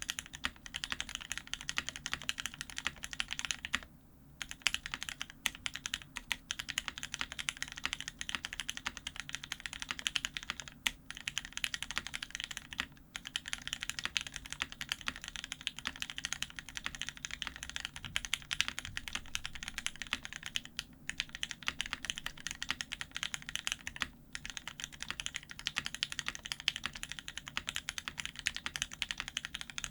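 Fast, continuous typing on an F1-8X aluminium-plate keyboard with lubed, filmed Gateron Ink Black linear switches and Hammerworks Desko PBT keycaps. There are brief pauses about 4, 13, 21 and 24 seconds in.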